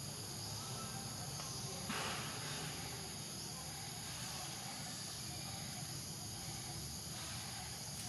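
Steady high-pitched insect chorus in the forest, with a brief rustling noise about two seconds in.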